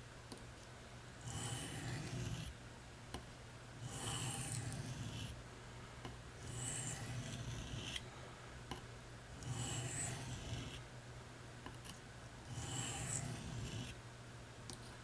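Buck 389 Canoe knife blade drawn across an Arkansas oilstone in slow, even strokes: five rasping strokes, one about every three seconds.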